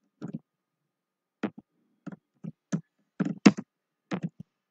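Computer keyboard being typed on: about a dozen separate keystrokes at an uneven pace, with the loudest group about three seconds in.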